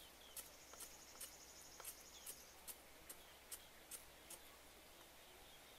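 Faint, sharp chirping calls of a small animal, about two a second, stopping a little over four seconds in, over a faint high insect trill.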